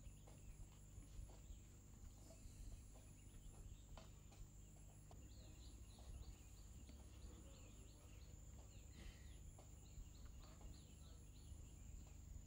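Faint outdoor natural ambience: a steady high-pitched insect-like drone, with a run of quick, repeated high chirps through the middle from birds or insects.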